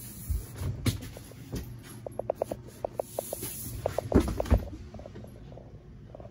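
Handling noise from a handheld camera moving through a boat cabin: a few dull thumps, the loudest just after four seconds in, with a quick run of short squeaks and ticks around them.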